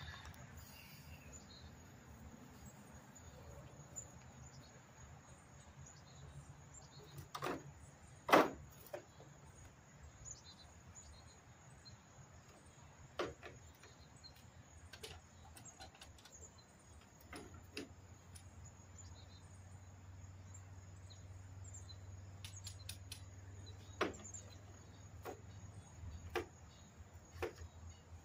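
Faint, scattered clicks and knocks of hand work on an E-Z-GO golf cart's floor area, the loudest about eight seconds in. A steady faint high insect trill runs underneath, and a low hum comes in a little past halfway.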